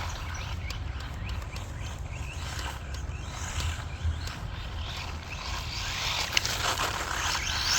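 Hospeed 1/16 short course truck with a brushless motor running on a 3S lipo, driving over the ground with faint motor whine and scattered ticks. It gets louder and fuller near the end as it comes closer.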